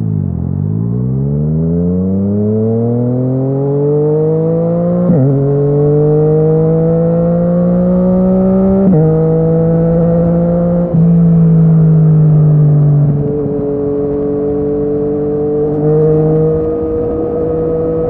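Yamaha MT-09's three-cylinder engine through an Akrapovic exhaust, pulling away with its pitch rising steadily. It changes up through the gears about five and nine seconds in and again near eleven, each shift a sudden drop in pitch. It then runs at a steadier, lighter throttle after about thirteen seconds.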